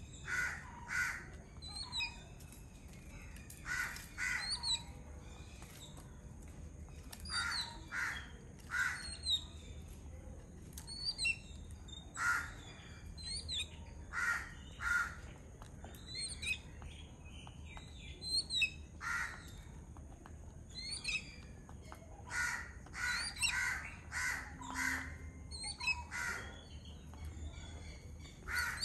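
A flock of yellow-billed babblers calling: short, harsh, chattering calls come in quick clusters every second or two, with thin high chirps mixed in.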